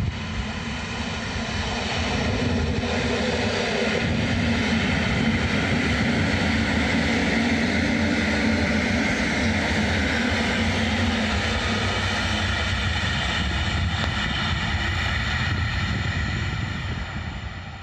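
Electric multiple unit passenger train passing close by: the sound builds to a steady whine over a deep rumble, then fades near the end as the train moves away.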